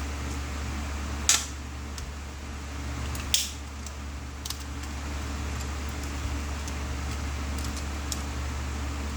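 Sharp clicks of small hard objects being handled, two loud ones about two seconds apart and a few fainter ticks later, over a steady low hum.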